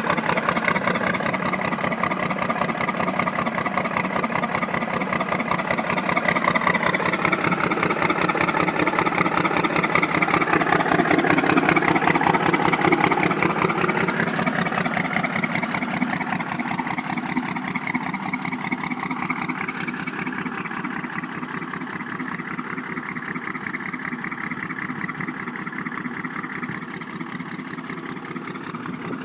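12-valve Cummins 5.9-litre inline-six diesel running, revved up briefly and let back down about a third of the way in, then running on steadily.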